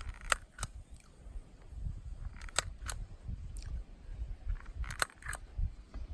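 A stapler snapping staples into a torn troll-doll kick toy: sharp clicks, mostly in quick pairs, three times, with one more on its own, over a low rumble.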